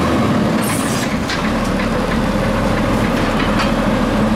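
Automated side-loader garbage truck running as its hydraulic arm lifts a wheeled trash cart: a steady engine hum with a few knocks and a brief hiss.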